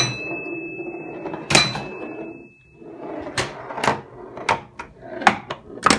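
Steel ball rolling across the playfield of a Briarwood Aspen home pinball table, with a run of about seven sharp knocks as it strikes posts and parts of the table. A thin high ringing tone hangs on for a couple of seconds after the first knock.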